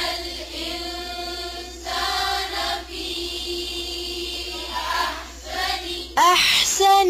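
Quranic recitation chanted together by a group of voices in unison, the words drawn out on long held notes, louder near the end.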